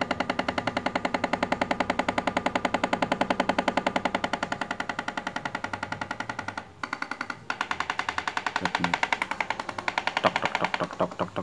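Niko electric fan running with a rapid, even clicking, about ten clicks a second, from its oscillation gearbox as the fan fails to swing from side to side: the gearbox's gear teeth are worn. The clicking breaks off briefly twice about seven seconds in, then turns more uneven near the end.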